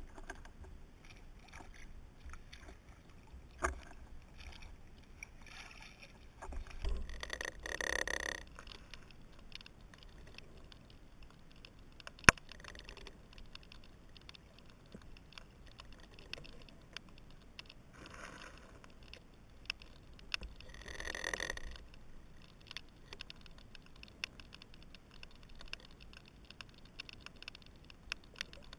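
Underwater ambience heard through a GoPro's waterproof housing: a faint, continual crackle of small clicks, with one sharp click about twelve seconds in and two louder stretches of hiss, one around eight seconds and one near twenty-one seconds.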